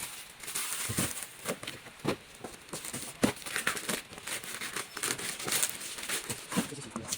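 Plastic packaging crinkling and rustling while shoes are handled, with irregular clicks and taps.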